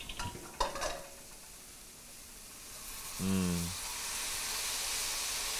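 Thick teriyaki sauce poured into a hot wok of sliced mushrooms, sizzling and hissing as it hits the pan. The sizzle builds about halfway through and then holds steady.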